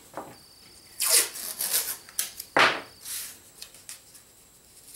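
Blue masking tape being handled, pulled and rubbed: a run of rasping, scratchy rubs about a second in and a sharper, louder rasp about two and a half seconds in.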